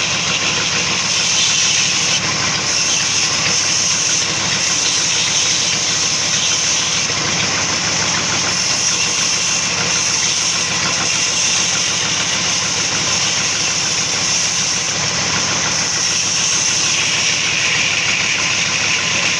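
Sawmill machinery running steadily, a continuous unbroken machine noise with a strong high hiss.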